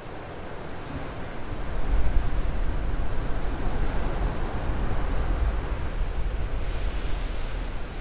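Sea surf breaking and washing over shoreline rocks, with wind rumbling on the microphone; the surge swells up about two seconds in and stays strong.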